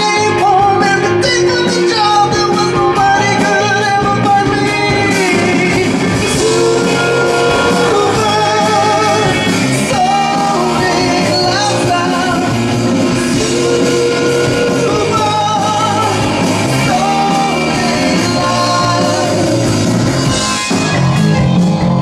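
Rock band playing live: a man sings the lead melody over electric guitar, electric bass and keyboard.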